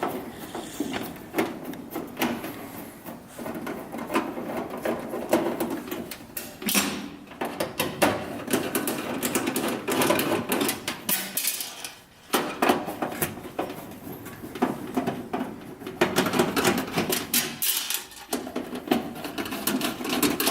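Screws being taken out of a dual fuel range's sheet-metal bullnose control panel: a long run of metal clicks and rattles, with a brief lull about twelve seconds in.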